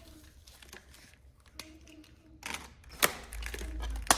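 Handling noises: rustling starts about halfway through, with two sharp clicks, the second near the end and the loudest.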